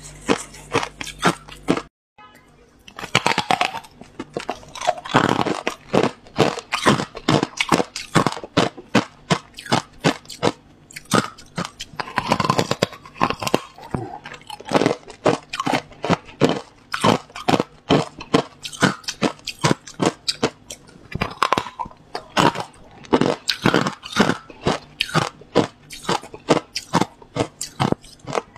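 Hard clear ice being bitten and crunched between the teeth: a dense run of sharp cracks and crunches many times a second, broken once by a short gap about two seconds in.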